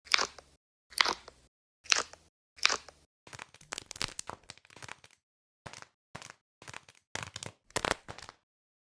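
Squishy stress toys handled and pressed, giving a string of sharp crunching and cracking sounds: four spaced about a second apart, then a quicker crackly run and more scattered crunches.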